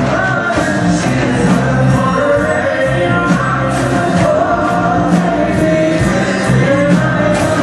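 Live folk-rock band playing: archtop electric guitar and upright double bass over a steady drum beat of about two strikes a second, with a woman and a man singing.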